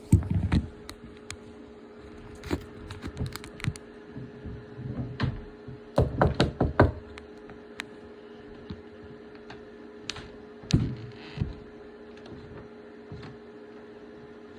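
Irregular knocks and bangs from a neighbour's home, some single and one quick run of about six around six seconds in, over a steady low hum.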